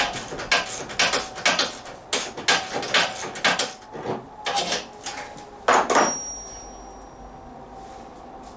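Metal parts and tools clanking and scraping in a series of irregular knocks. The last, sharper clank, about six seconds in, leaves a brief high metallic ring.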